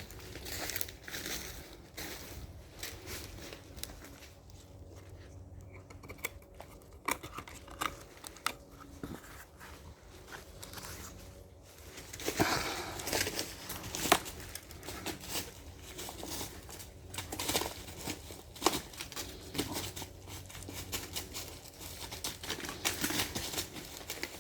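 Irregular rustling and crinkling with many scattered sharp clicks, busier and louder in the second half.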